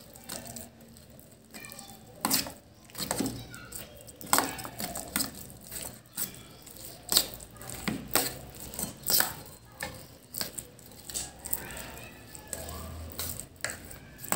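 A steel spoon scraping and clinking against a stainless steel bowl as it mixes food colour into soft semolina halwa, with irregular clicks several times a second.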